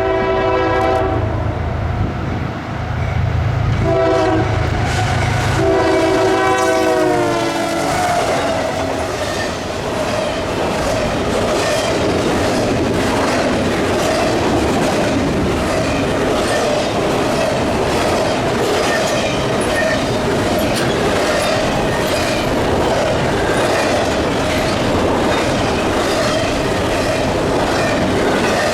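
A GE ES40DC freight locomotive's five-chime Nathan K5HL horn sounds a long, a short and a long blast. The last blast drops in pitch as the locomotive passes. From about 8 s on, the freight cars roll by, their wheels clicking steadily over the rail joints.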